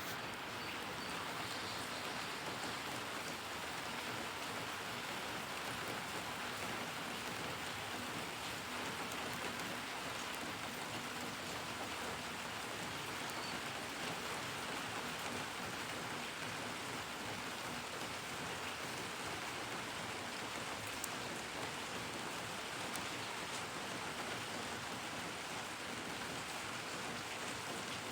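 Steady rainfall, an even hiss of rain falling on surfaces with faint scattered drop ticks.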